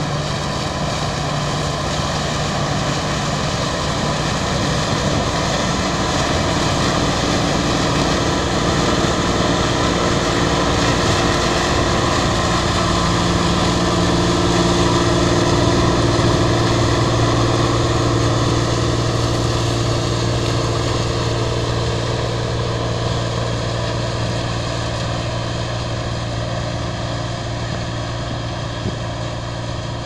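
Claas Dominator 108 combine harvester running under load while harvesting corn: engine and threshing machinery make a steady, many-toned drone. It grows louder as the combine comes close about halfway through, drops slightly in pitch as it passes, then fades as it moves away.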